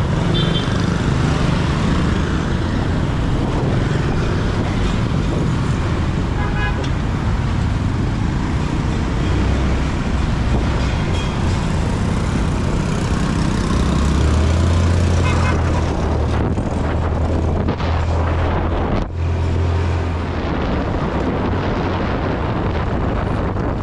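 Road traffic heard on the move through a city street: a steady rush of wind and engines, with brief horn toots now and then and a low engine hum that swells for several seconds past the middle.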